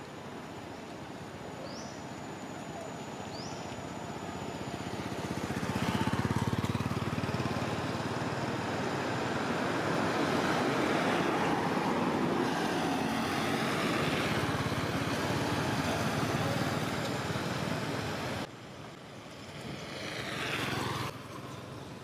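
A motor engine running, swelling to a steady drone that holds for several seconds, then dropping off suddenly, swelling again briefly and cutting off near the end.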